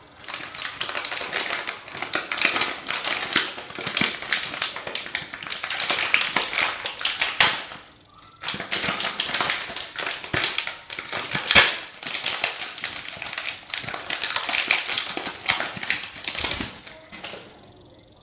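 Metallized anti-static plastic bag crinkling and crackling as hands handle it and pull it open to take out a circuit board, with a short pause about eight seconds in.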